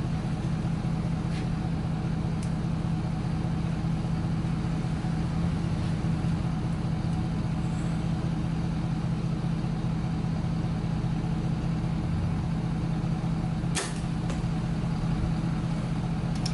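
A Mathews Triax compound bow shot, heard as one sharp crack about three-quarters of the way through, with a second, fainter click about half a second later. Underneath runs the steady low rumble of a truck's engine running nearby.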